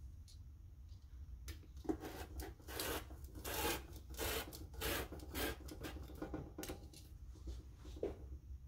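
Rotary cutter rolling back and forth along the edge of a metal ruler, slicing through a sheet of copy paper laid on a T-shirt: a quick run of short scraping strokes lasting about five seconds.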